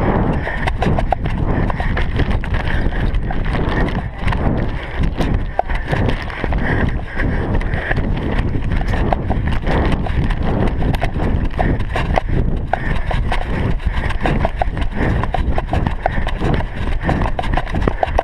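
A runner's footfalls on grass, heard through the GoPro he is wearing, as a steady run of thuds with a low rumble of wind buffeting the microphone.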